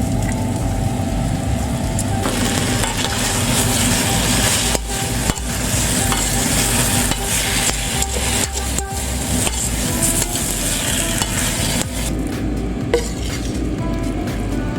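Food sizzling in hot oil in a pan while it is stirred, with scattered clicks and scrapes of the utensil against the pan.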